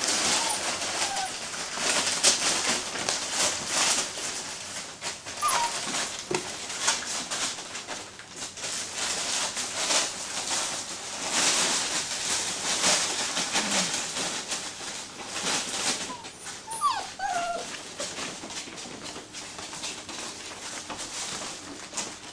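Greater Swiss Mountain Dog puppies, six weeks old, whimpering and yipping a few times, briefly. Their paws and bodies keep newspaper and a plastic tarp rustling and crinkling throughout.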